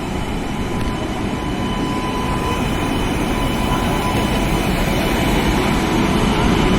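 Passenger train hauled by a WAP-7 electric locomotive running along the platform: a steady rumble of wheels and coaches with a faint steady whine, slowly growing louder.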